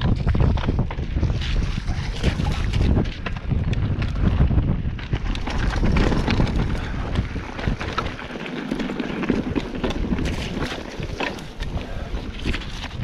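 Wind rumbling on the microphone while a mountain bike rolls down a rocky, rutted trail. Frequent clatters and knocks come from the tyres and bike going over stones.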